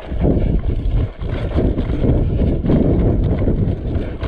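Footsteps of a person running on dry dirt, a quick run of knocks over rumbling low noise as the camera is jostled.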